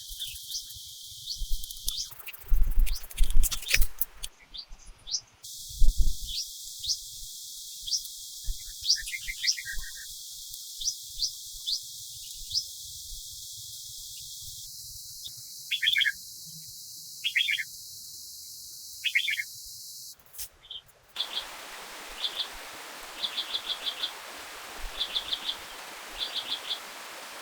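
Small forest birds chirping and trilling in short repeated calls over forest ambience. A few loud rustling bursts and thumps come in the first six seconds, and a steady stream hiss joins in from about two-thirds of the way through.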